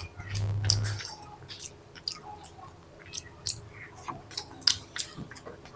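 A person chewing a mouthful of rice and egg curry close to the microphone, with many small wet mouth clicks and smacks.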